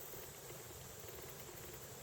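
Faint, steady outdoor ambience: a continuous high-pitched insect chorus over a low background hiss.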